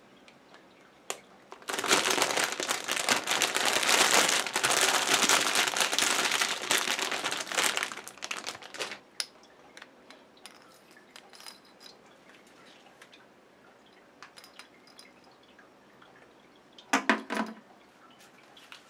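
Clear plastic packaging crinkling and rustling for about six seconds as a bidet sprayer kit's hose and sprayer head are taken out of their bag. Light clicks and taps of the plastic parts being handled follow, with a short rustle near the end.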